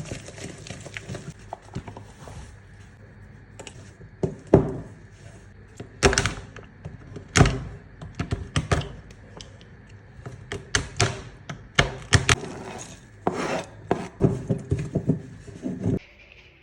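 Kitchen utensils and bowls knocking, clattering and scraping in irregular bursts while baking, with several sharper knocks among them.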